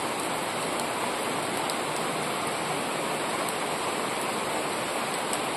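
Steady rain falling on garden leaves and grass: an even hiss with faint drop ticks.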